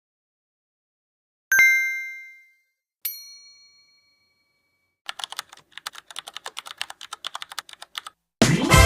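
A string of short sound effects: a bright ding that rings for about a second, a shorter higher ding, then about three seconds of quick computer-keyboard typing clicks, and near the end a sudden loud, noisy hit.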